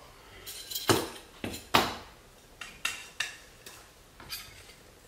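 Shooting-stick leg sections knocking and clicking against each other and the counter as the legs are handled and fitted together: three sharp knocks in the first two seconds, the last one the loudest, then several lighter clicks.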